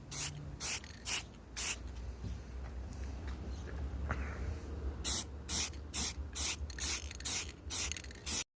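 Short hissing sprays, about two a second: four quick sprays, a pause of about three seconds, then about eight more in a row. A low steady hum runs underneath.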